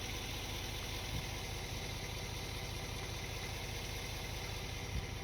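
Pickup truck running slowly along a bumpy trail, heard from inside the cab: a steady low engine and road rumble, with a low thump near the end.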